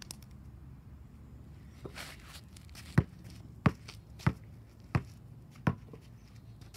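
Basketball dribbled on an asphalt driveway: five bounces at an even pace, about two-thirds of a second apart, starting about three seconds in.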